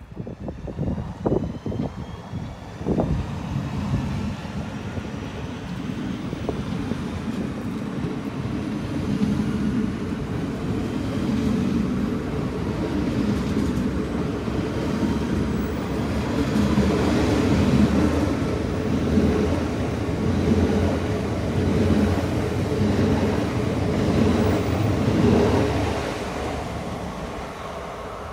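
Electric passenger train running past, growing louder to a peak about two-thirds of the way through and fading near the end. A few sharp thumps come in the first three seconds.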